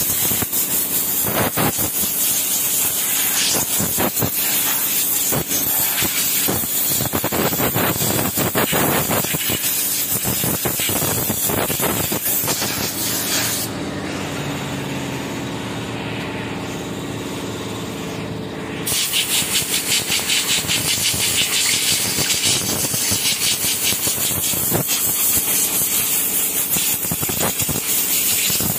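Pressure washer spraying water onto a motorcycle part, with a steady loud hiss and the pump running. About 14 seconds in the spray stops for roughly five seconds, leaving a lower hum, then starts again.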